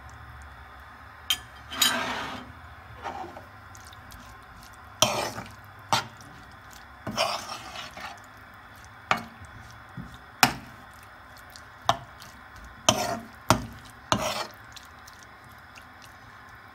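A metal spoon stirring chicken pieces in a non-stick frying pan: about a dozen irregular scrapes and clinks of metal on the pan, with wet squelches from the milk-moistened meat. The strokes stop a couple of seconds before the end.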